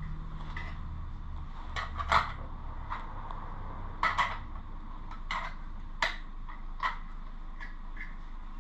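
Scattered light metallic clicks and clinks of hand tools and grinder parts being handled, as the cutting disc on an angle grinder is changed.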